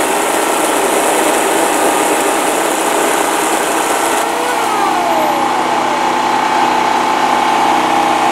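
Worx JawSaw electric chainsaw running with its chain whirring, then switched off about four seconds in and winding down in a falling whine. A generator engine runs steadily underneath throughout.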